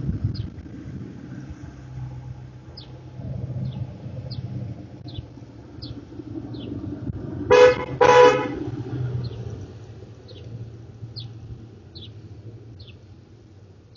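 Car horn honking twice in quick succession, two short toots about half a second apart, roughly halfway through.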